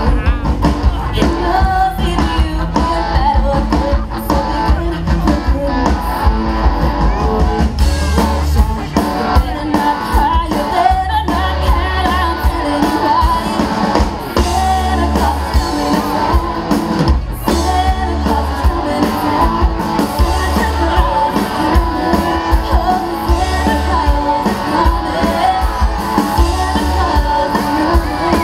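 Live band playing a rock-style song: a woman sings lead through a microphone over electric guitar and a steady bass beat.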